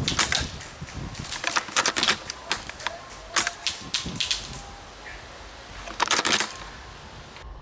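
Irregular sharp clicks and pops of airsoft gunfire, with a quick run of them about six seconds in.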